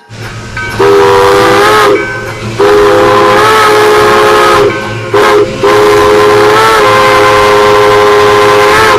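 Steam locomotive's chime whistle sounding a chord in four blasts, long, long, short, long, the pattern of a grade-crossing signal, over a steady steam hiss. The pitch sags slightly as each long blast ends.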